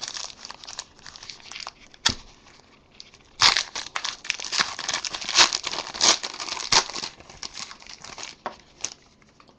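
Crinkling and tearing of a trading-card pack's wrapper as it is torn open by hand: a run of crackles with several sharper snaps in the middle.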